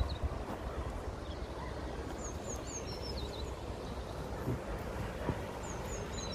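Steady rushing noise of a swollen, fast-flowing flooded river. A small bird sings over it, repeating the same short high phrase about every three and a half seconds: a few quick notes, then a falling flourish, once about two seconds in and again near the end.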